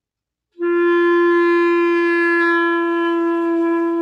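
A clarinet plays one long held note that starts about half a second in, with the player's head upright at first and then tilted down. The note demonstrates how dropping the head alters the clarinet's tone.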